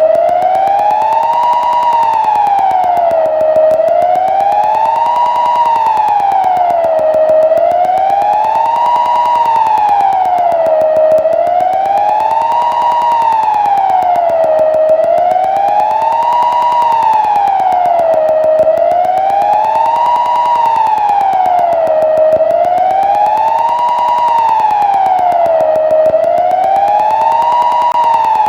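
Kockum Sonics Delta-4 TK siren sounding the Swiss general alarm: a loud wailing tone that rises and falls steadily, about one slow rise and fall every four seconds.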